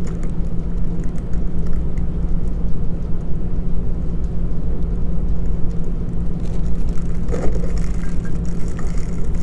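Steady low hum and rumble, even and unbroken, with one constant droning tone.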